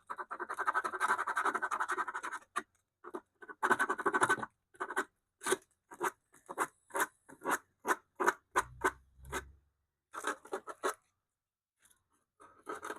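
Sandpaper rubbed by hand on the bare wood of a radio cabinet. A quick run of scratching strokes comes first, then slower separate strokes about two or three a second, with short pauses before it starts again near the end.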